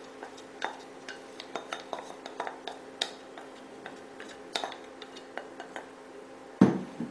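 Wooden spatula scraping marinated chicken off a plate and knocking against the cooking pan: a string of light clicks and scrapes, with one louder knock about six and a half seconds in.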